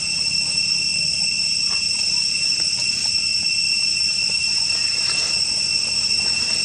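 Steady chorus of forest insects: a continuous high-pitched drone made of several unchanging tones.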